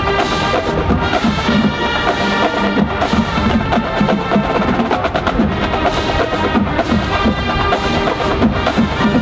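Music with busy percussion: quick, regular hits over sustained pitched notes, playing at a steady level.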